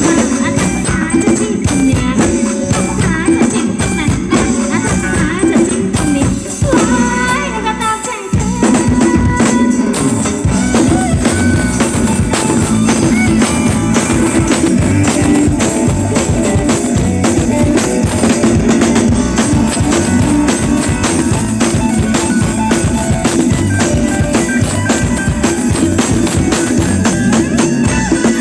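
Band playing upbeat Thai ramwong dance music, with drum kit and jingling tambourine-like percussion keeping a steady beat. The beat drops out for about a second and a half roughly seven seconds in, then comes back in.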